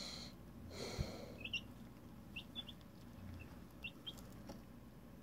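Two-week-old pullet chicks peeping: short, high cheeps scattered through, with a soft knock about a second in.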